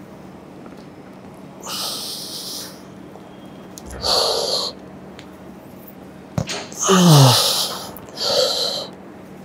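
A man's forceful exhales through the mouth, one with each pull of a heavy T-bar row, about two seconds apart. One, about two thirds in, turns into a strained grunt that falls in pitch. A single sharp click comes just before it.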